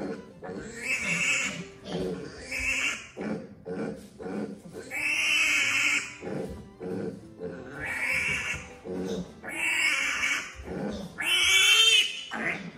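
Piglet squealing in distress as it is castrated with a scalpel: a run of loud, high-pitched squeals, each about a second long, with short breaks between them.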